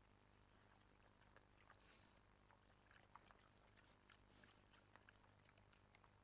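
Faint, scattered crunching and clicking of young wild boar feeding and rooting at the ground, over a steady low hum.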